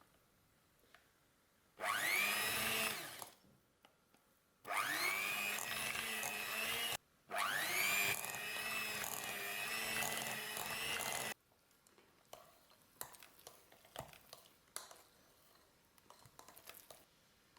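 A small electric kitchen appliance motor run in three bursts: a short pulse about two seconds in, then two longer runs of a few seconds each. Each burst spins up with a rising whine and then holds steady. Light scattered clicks and taps follow near the end.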